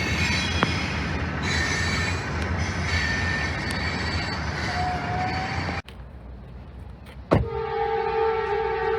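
Train rolling past with a steady rumble and thin wheel squeal from the rails. About seven seconds in, after a sudden drop and a sharp click, a locomotive air horn starts blowing a steady, multi-note chord.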